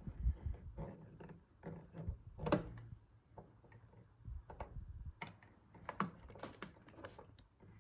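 Hand screwdriver driving the bottom screw of a light switch, with small irregular clicks and scrapes of metal on metal as the screw is turned in.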